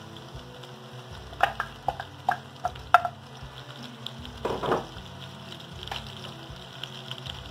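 Diced carrots, celery and onion sizzling in hot bacon grease in an enameled cast-iron Dutch oven: a steady frying hiss with a run of sharp pops between about one and a half and three seconds in, and a brief louder crackle just past the middle.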